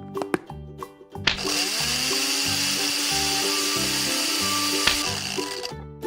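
A steady, loud whirring sound effect that starts with a rising tone about a second in and cuts off suddenly near the end, over children's background music with a bouncing bass line.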